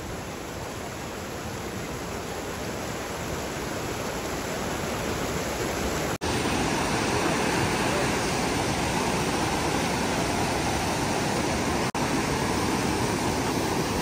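Rushing white water of a rocky stream running high after heavy rain: a steady rush that grows louder over the first few seconds and cuts out for an instant twice.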